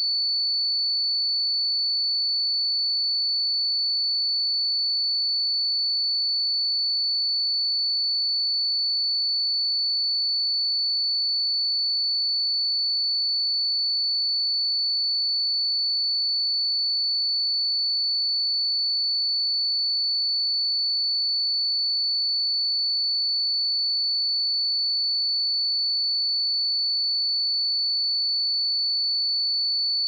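A pure 4472 Hz sine-wave test tone: one steady, unwavering high-pitched tone.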